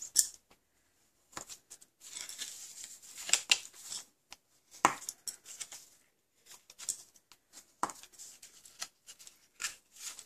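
Cardstock score lines being burnished and folded: a tool rubbing dry and scratchy along the paper, with scattered paper clicks and two sharper taps about five and eight seconds in.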